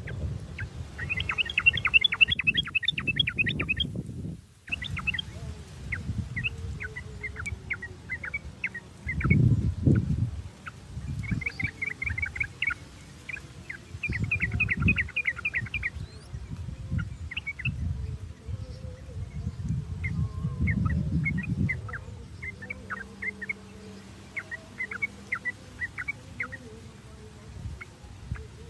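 Yellow-vented bulbuls (trucukan) chattering in repeated bursts of quick, bubbling notes, several phrases overlapping, with low uneven rumbling underneath.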